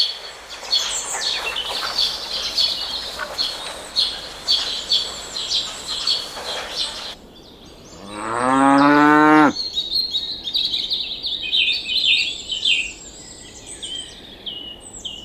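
A cow moos once, one long call about eight seconds in. Small birds chirp before and after it.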